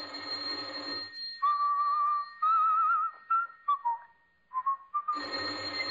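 Electric doorbell ringing for about a second, then a person whistling a short wavering tune. The doorbell rings again about five seconds in.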